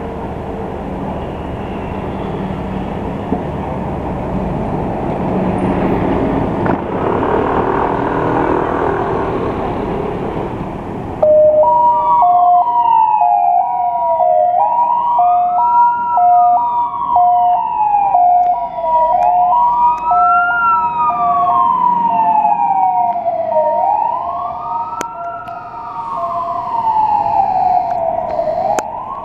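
Vehicle engines running amid traffic, then about eleven seconds in emergency sirens start abruptly: a two-tone hi-lo siren sounding together with a wail that rises quickly and falls slowly, repeating every four to five seconds. They come from a Volkswagen T5 ambulance and an Isuzu Elf fire pumper responding to an emergency.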